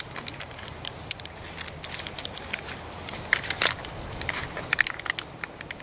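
A person chewing a First Strike bar close to the microphone: scattered small crackly clicks and mouth sounds.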